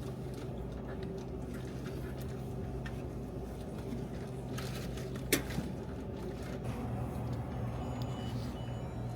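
A vending machine running with a steady low hum, with one sharp click about five seconds in.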